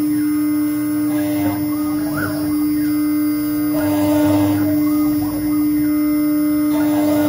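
ACUT-6090 desktop CNC router running a cut: a steady, loud humming tone from the spindle, with fainter whines from the axis motors that shift in pitch every second or two as the head moves through the cut.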